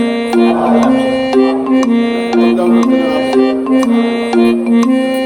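Background music: a repeating instrumental melody of plucked or keyboard-like notes over a steady beat with regular percussive strikes.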